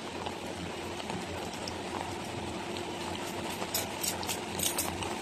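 Steady hiss of rain falling on a wet street and stall awnings, with a few sharp ticks about four seconds in.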